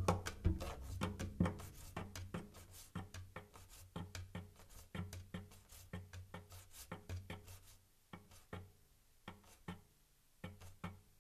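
Cello played without a bow, with fingertip taps and knocks on its strings and wooden body, over a low ringing note that dies away. The taps thin out and grow fainter after about eight seconds, with a few last soft taps near the end.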